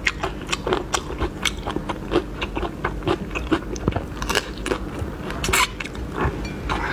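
Close-miked eating of a whole shrimp: the shell cracking and crunching as it is peeled and bitten, with chewing, in a dense run of sharp irregular clicks.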